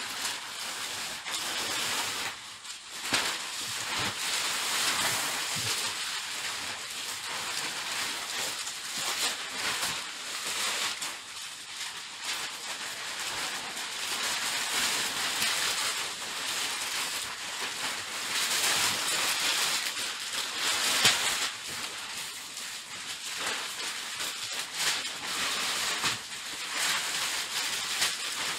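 Polyethylene bag liners rustling and crinkling as they are handled and pulled over a wooden frame, rising and falling unevenly throughout.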